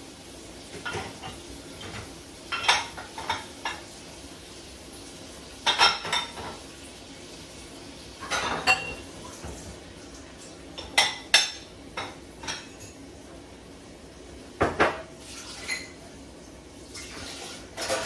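Dishes clinking and knocking against each other and the dishwasher's wire rack as they are loaded, in separate bursts every few seconds.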